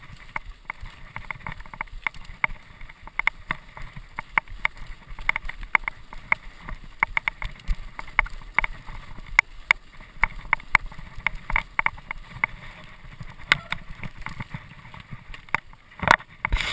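Mountain bike rattling and knocking as it rides down a wet, muddy dirt trail: a dense, irregular run of clicks and clatters from the bike and tyres over a low rumble, with a brief louder rush near the end.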